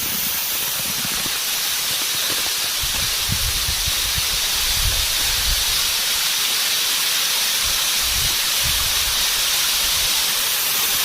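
Small waterfall running with a low flow of water, a steady hiss of falling water, with patches of low rumble partway through.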